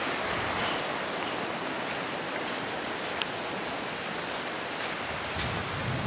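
River water rushing steadily over rocks, a constant wash, with a few faint taps and rustles.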